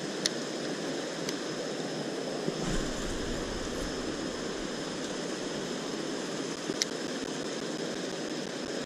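River water rushing steadily over rocks, with a few faint clicks.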